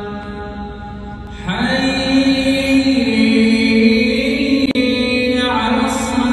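A voice chanting long, drawn-out melodic notes, a new phrase rising in about a second and a half in and stepping in pitch twice as it is held.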